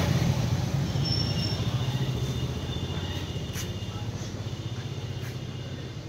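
Car engine running, growing gradually quieter, with a couple of faint clicks.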